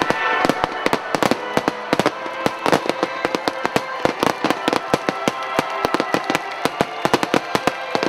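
Fireworks finale barrage: a rapid, dense run of shell bursts and crackling reports, many sharp bangs a second, over music playing in the background.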